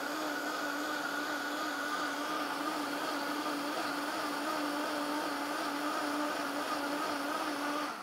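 Vitamix A3500 blender running its pre-programmed smoothie cycle on ice and grapefruit, a steady motor whine at constant speed. The whine winds down and stops near the end as the program finishes.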